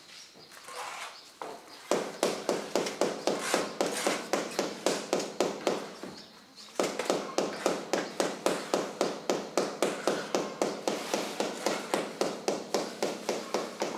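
Rapid, even tapping of a hand tool such as a hammer on hard building material, about four strikes a second. It starts about two seconds in, stops briefly around six seconds and then carries on.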